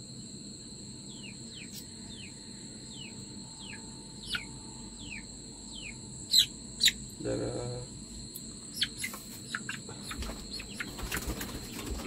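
Aseel chick peeping repeatedly while held in the hand, a steady run of short falling chirps about two a second, two louder ones about six and a half seconds in. A steady high insect drone runs underneath, and over the last few seconds come clattering knocks from a cage door being handled.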